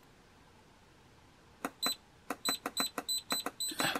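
The FNIRSI HS-02A soldering iron's button beeper giving a quick run of about a dozen short, high beeps, several a second, starting about one and a half seconds in. Each beep confirms a press of the minus button as the sleep timeout is stepped down.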